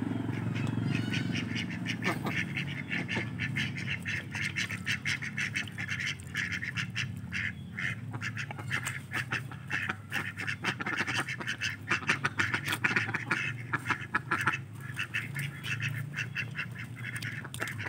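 A flock of domestic ducks quacking, many short calls in quick, overlapping runs.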